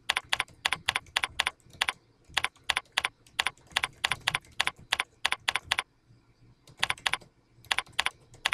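Typing on a computer keyboard: quick runs of keystrokes with short breaks between words, and a longer pause about six seconds in.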